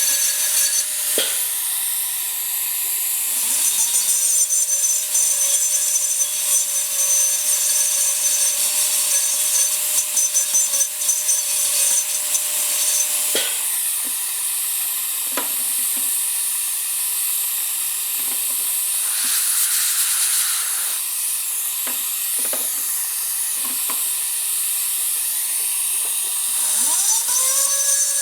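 Dental handpiece running on a model tooth during a resin filling procedure: a steady whine over a constant air hiss, with short scraping clicks as the bur touches the tooth. The whine cuts off about halfway through and rises again near the end as the handpiece spins back up.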